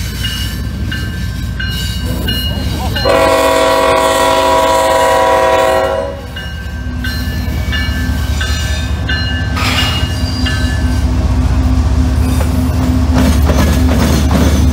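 Railroad crossing bell dinging as a CSX freight train approaches; the lead diesel locomotive's horn gives one long, loud blast about three seconds in, lasting about three seconds. From about seven seconds the locomotives pass close by with a steady low engine drone and rumbling wheels.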